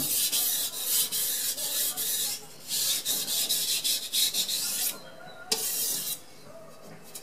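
Soft, cheap steel knife blade scraped in runs of quick strokes across a wet Carborundum #4000 water stone, with short pauses between runs, stopping about six seconds in. These are final edge-refining passes on the 4000-grit stone, working off the burr.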